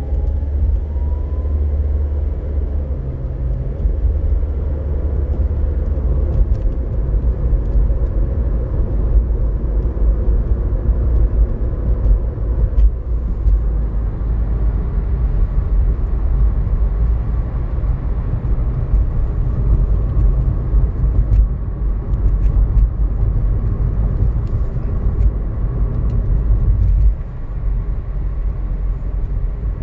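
Road and engine noise inside a moving car's cabin: a steady low rumble that drops a little shortly before the end.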